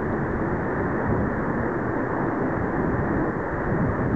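Jet engine noise from a Boeing 737's CFM56 turbofans during its landing rollout, a steady rushing sound with no distinct tones.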